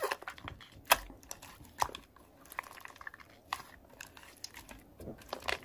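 Soft, fluffy pink slime being squished and stretched by hand, giving irregular sticky crackles and little pops, a few of them louder.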